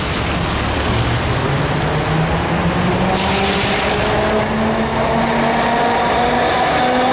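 Vintage Peter Witt-style tram's electric traction motors giving a steady rising whine as it picks up speed, over street traffic. A short hiss comes about three seconds in, and a brief high squeal follows about a second later.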